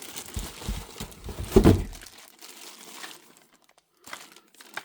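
Packaging rustling and crinkling as fan parts are lifted out of the box, with a few dull handling thumps, the loudest about one and a half seconds in; it fades after about three seconds, leaving a couple of light clicks.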